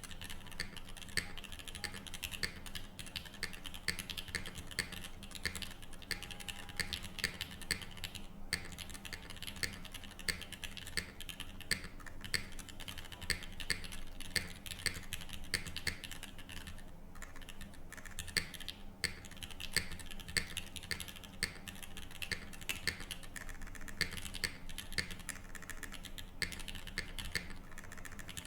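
Continuous typing on a mechanical keyboard: a Tofu60 3.0 top-mount case with aluminium plate and no foam, fitted with Gateron L'Orange switches and KKB Cinque Terre keycaps. Fast, irregular key clacks, with brief pauses about eight seconds in and again around seventeen seconds.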